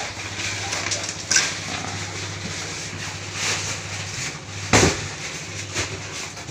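A steady low hum with light knocking and rustling from handling; one sharp knock a little before the end is the loudest sound.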